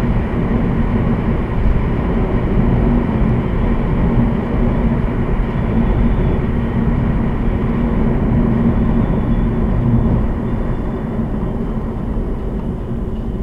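Steady in-cabin road noise of a car driving along a country road: engine drone with tyre and wind noise, easing slightly near the end.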